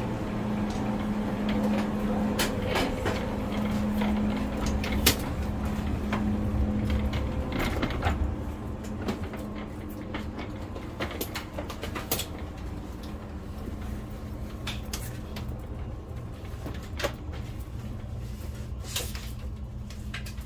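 Steady low hum of a stationary ICE high-speed train's onboard systems heard inside the carriage, with scattered clicks and knocks from passengers boarding. The hum drops a little in level about eight seconds in.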